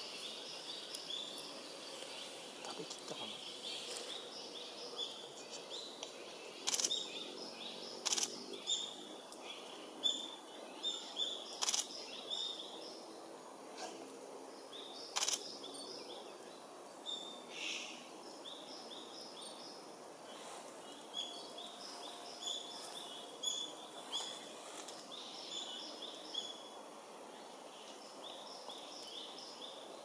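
Small woodland birds chirping and singing, many short notes repeated over and over, with a few sharp clicks standing out above them.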